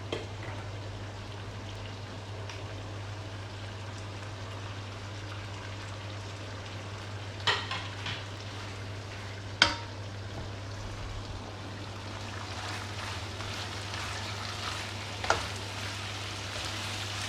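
Chicken liver and chicken heart frying in a pan on a full flame, with a steady sizzle that grows a little louder in the second half. A cooking utensil knocks against the pan a few times while stirring, the sharpest knock just under ten seconds in.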